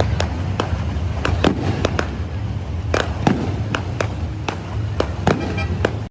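Fireworks display: more than a dozen sharp bangs from bursting shells at irregular intervals, over a steady low rumble.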